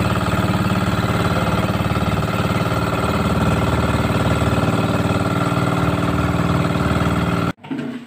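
Engine of a motorized outrigger fishing boat running steadily while the boat is underway, a loud even drone that cuts off suddenly near the end.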